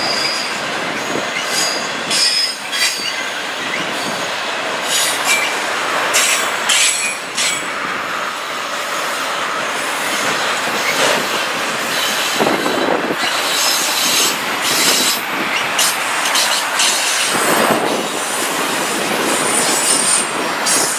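Autorack freight cars rolling past on the rails: a steady rumble and rattle of wheels and car bodies, with brief high-pitched wheel squeals and scattered clanks.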